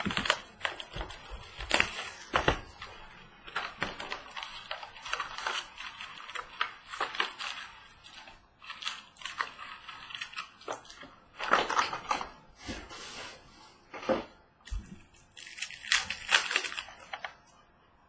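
A cardboard box of 2017 Donruss Optic baseball card packs being opened and its wrapped packs pulled out and handled: irregular rustling and crinkling of wrappers and cardboard, coming in uneven clusters with short pauses.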